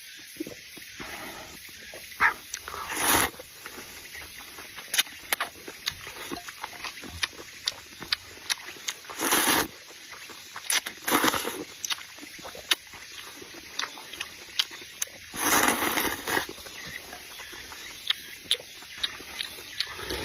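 A person eating close to the microphone, most likely pig ear and rice noodles: wet chewing smacks and mouth clicks throughout, with several longer slurps.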